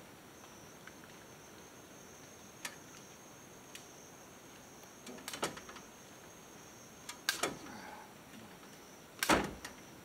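Scattered clicks, scrapes and knocks from hands working wire mesh into a rain gutter's downspout, the loudest a knock near the end. A steady high insect drone runs underneath.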